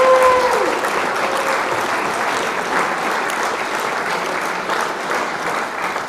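Applause, a dense crackle of clapping that cuts in abruptly and fades away near the end.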